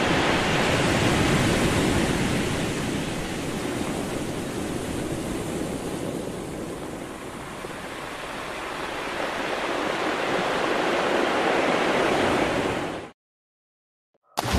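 Ocean waves rushing in a steady surf, easing off midway and swelling again, then cutting off abruptly about thirteen seconds in.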